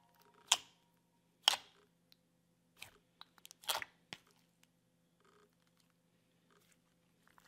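Fingers poking and pressing a clear jelly slime, making a string of short, sharp wet pops and squelches. They come about a second apart and are louder in the first four seconds, then fainter.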